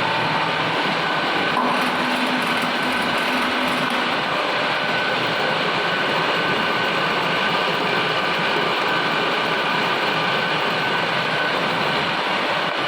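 CNC vertical machining centre milling a T-slot: steady machining noise from the spindle and cutter, with a few steady whining tones held throughout.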